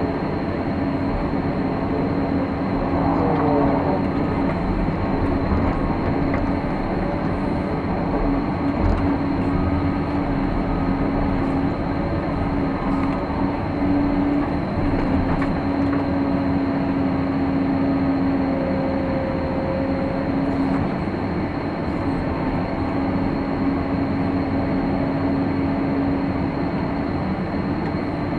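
Caterpillar hydraulic excavator running under load, heard from inside the cab as it digs and swings to load a dump truck: a steady engine drone with a held hum, and a brief falling tone about three seconds in.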